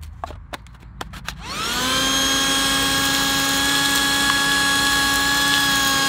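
Cheap 12 V handheld car vacuum switched on: a few plastic clicks, then about one and a half seconds in the motor spins up to a steady high whine and keeps running.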